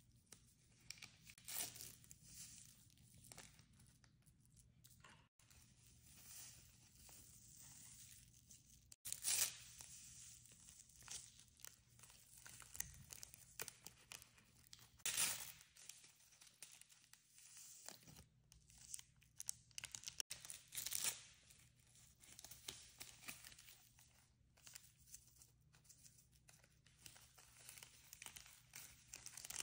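Faint fizzing and crackling of foam bubbles popping on coffee around a breaded piece of meatloaf, with a few louder crackles spaced several seconds apart.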